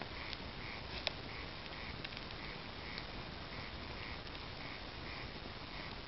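Bonfire crackling, with sharp pops over a steady hiss; the loudest pop comes about a second in. A short call repeats in the background about twice a second.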